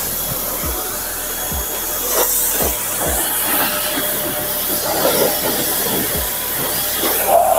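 Parkside PHD 135 E5 electric pressure washer (1800 W motor and pump) running steadily, its high-pressure water jet hissing as it sprays onto a car's bodywork and wheel.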